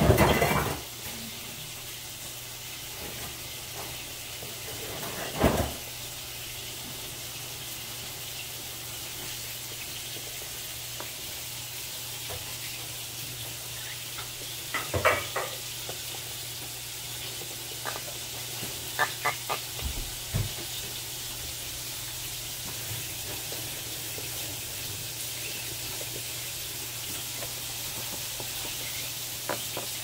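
Steady hiss with a low hum, broken by a few short soft clicks and taps: one about five seconds in, one around fifteen seconds, a small cluster around twenty seconds and one near the end. These are small handling noises while a chick is syringe-fed.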